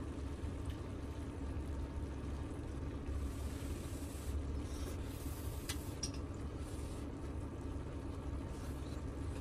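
Close-up mukbang eating sounds: wet chewing and slurping of stir-fried beef, octopus and noodles, with a few light chopstick clicks. A steady low hum runs underneath.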